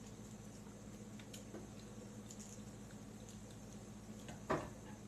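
Faint clicks and taps of a fork against a plate while eating, with one sharper clink about four and a half seconds in, over a low steady hum.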